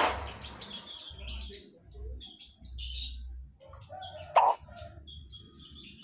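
Sunbird twittering in quick, high chirps, with a sharp click a little after four seconds in.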